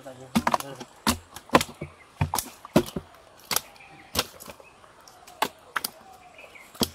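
Fish tossed one by one into a plastic crate, each landing with a wet slap against the plastic and the fish already in it: about a dozen sharp hits at uneven intervals.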